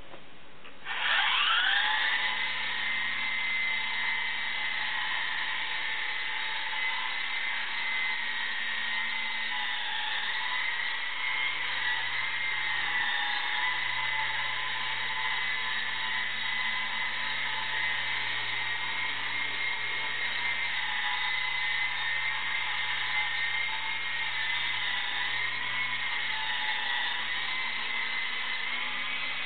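Lama V3 coaxial micro RC helicopter's electric motors and rotors spinning up about a second in with a quick rising whine, then a steady high-pitched whine that wavers slightly in pitch as it flies.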